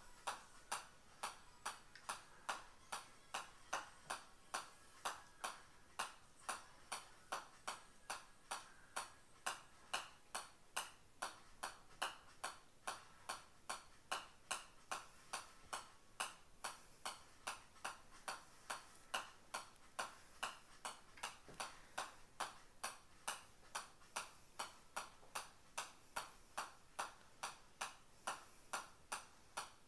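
Golf ball bouncing off the face of a pitching wedge as it is juggled on the club without stopping: a steady run of sharp ticks, about two and a half a second.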